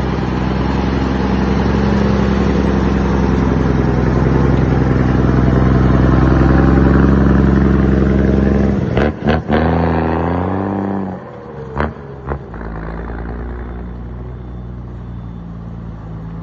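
Old Mercedes-Benz truck diesel engine running loud and held at high revs. About nine seconds in come a few sharp clicks and a brief dip and rise in pitch, then the engine falls back to a lower, steady idle with two more clicks.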